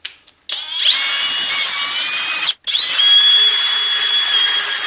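Electric drill spinning a wire wheel brush against the lawnmower engine's metal, scrubbing it clean. It spins up with a rising whine about half a second in, stops briefly past the halfway point, then starts again and runs steadily.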